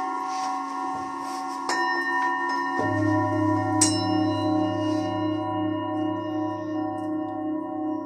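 Several Tibetan singing bowls ringing together in long, overlapping tones, struck with mallets. A bowl is struck a little under two seconds in and again at about four seconds, and a large bowl with a deep tone joins shortly before three seconds, its sound wavering about twice a second.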